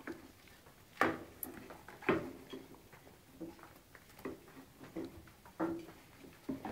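Five-week-old puppies playing with slippers on a carpet: a scatter of short sharp noises, the loudest about a second in, two seconds in and again near the end.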